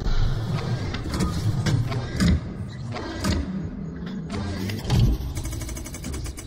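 Logo-intro sound effects: a low mechanical rumble with several sharp hits, the loudest about two and five seconds in, and a fast run of clicks near the end.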